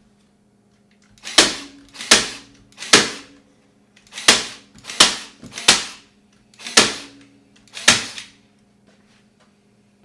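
Staple gun firing eight times, sharp snapping clacks spaced about a second apart, driving staples through fabric into a wooden panel frame.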